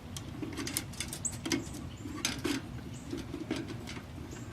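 Irregular clicks, taps and light scraping as a plastic hanging bird feeder and wooden dowels are handled and positioned with zip ties.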